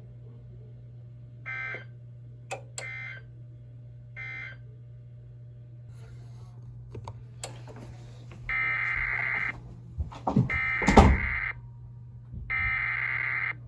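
Emergency Alert System SAME digital data bursts, harsh buzzing tones: three short end-of-message bursts about 1.5, 3 and 4 seconds in, then three longer header bursts of about a second each beginning the next alert. A loud thump falls during the second long burst, over a steady low hum.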